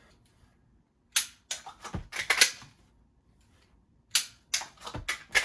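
Sharp plastic-and-metal clacks of a dry-fire magazine reload on a Glock 41 pistol: a magazine pulled from a belt holder and seated in the grip, then the slide dropping. They come in two quick bunches, about a second in and again near the end.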